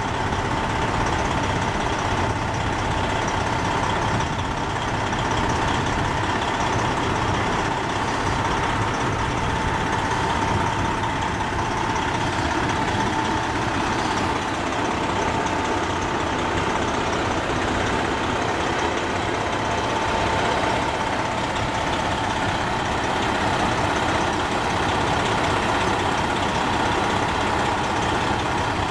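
Diesel semi truck engine running steadily, with a constant high whine over the rumble.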